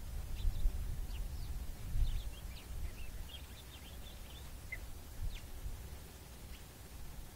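Wind rumbling on the microphone in uneven gusts, with faint short high chirps from small birds, thickest around three seconds in.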